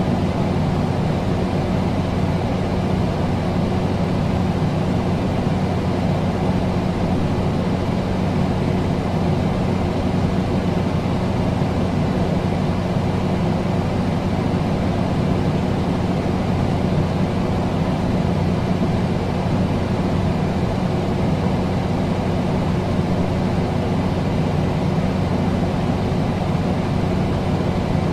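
Air conditioner running steadily: an even rush of air over a constant low electrical hum from the compressor and fan motor, with no change in speed or level.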